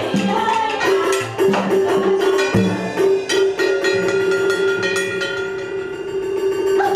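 Chèo traditional theatre ensemble playing: quick wood-block and drum strokes over a long held note.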